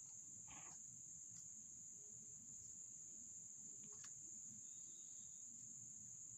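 Near silence: room tone with a steady faint high-pitched whine and a few faint clicks.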